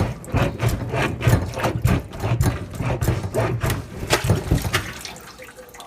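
Irregular knocks and thuds, a few a second, with a heavy low thump to each, dying away near the end.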